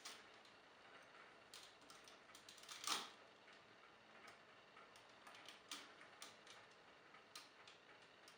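Faint, irregular clicks and taps of hard plastic toy parts being handled and pegged together on a Titan Megazord figure, with one louder click about three seconds in.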